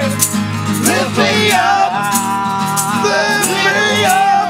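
Live band music: a held, bending melodic line over steady bass and chords, with a high percussion stroke about twice a second.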